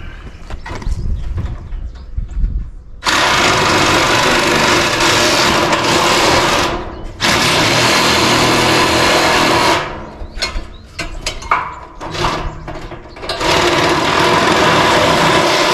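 DeWalt cordless drill driving a metal-cutting shear attachment through a steel roofing panel. It runs in three long stretches of several seconds, starting about three seconds in, with short stop-start bursts between them.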